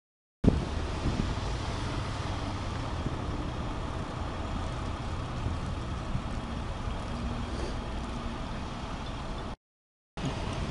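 Steady rumble of car traffic on a snowy street. It drops out twice for a split second, once at the start and once near the end.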